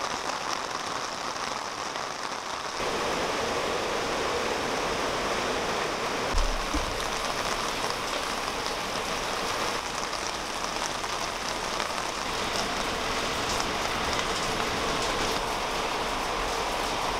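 Steady rain falling on a garden, an even hiss with fine drop ticks, a little louder from about three seconds in. There is one brief low thump about six seconds in.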